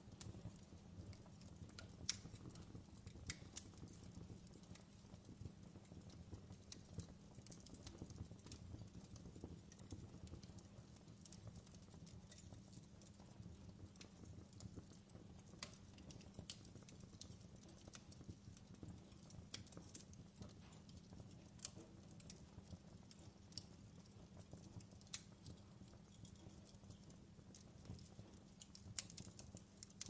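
Wood fire crackling faintly: irregular sharp pops and snaps, several times a second at some moments and sparser at others, over a steady low background.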